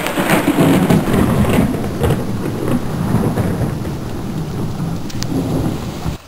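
Loud, rough rumbling and rushing noise that cuts off suddenly near the end.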